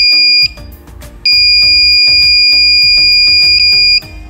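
Small electronic buzzer on a home-made transistor circuit sounding a loud, steady high-pitched beep that cuts off about half a second in and comes back a little over a second in for almost three seconds. Background music with a beat runs underneath.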